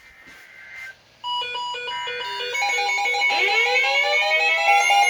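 Emergency Alert System activation for a coastal flood warning, marking the start of the alert. It opens with faint warbling data tones, then stepped electronic beeps come in about a second in. About three seconds in, rising sweeps join and build into a loud, steady alarm tone.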